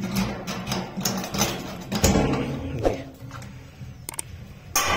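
Key turning in the lock of a stainless steel box door, with a run of metallic clicks and knocks and a louder knock about two seconds in, as the lock is worked and the steel door swung open. A sharp metal knock near the end.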